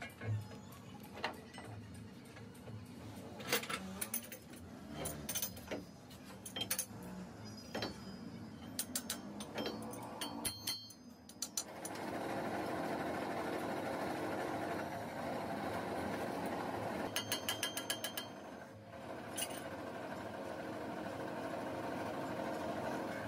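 Metal clicks and knocks as a crankshaft is fitted and clamped in a lathe chuck. After about twelve seconds the lathe starts running with a steady mechanical hum as the crankshaft turns, with a short burst of rapid rattling clicks partway through.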